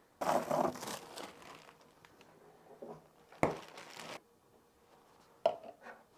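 Kitchen items being handled: a crinkling rustle for about a second and a half, then a sharp knock about three and a half seconds in, and two light clicks near the end.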